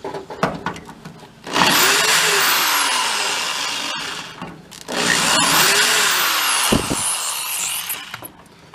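Power drill drilling into a rusted, stripped door hinge bolt, run in two bursts of about three seconds each; each time the motor pitch rises as it spins up and then sags under load.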